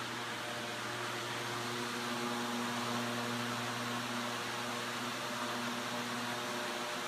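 Large electric floor fan with a metal grille running steadily: an even rush of moving air with a low, steady motor hum.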